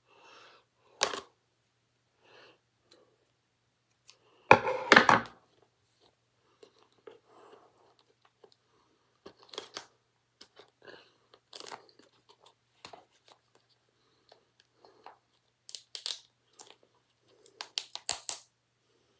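Scissors cutting and packaging being torn and crinkled off a DVD: scattered snips, crackles and tearing, with the loudest burst about five seconds in and a run of sharp crackles near the end.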